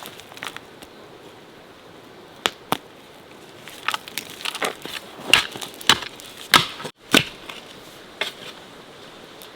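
Irregular sharp knocks and cracks: two around two and a half seconds in, then a dense run of them from about four to seven seconds in, and one more near eight seconds.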